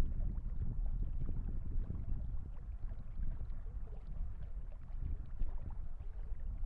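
Water lapping and slapping against the hull of a fishing kayak on choppy water, with wind rumbling on the microphone as a steady low noise.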